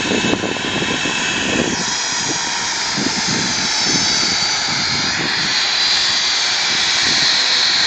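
Twin-engine jet airliner's engines whining at the runway end. A high whine rises and grows a little louder in the second half, as the engines spool up.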